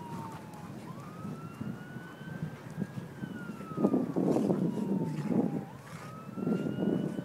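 An emergency-vehicle siren wailing, its pitch rising and falling slowly in a cycle of about three seconds. Over it, from about four seconds in, come two stretches of louder rough noise.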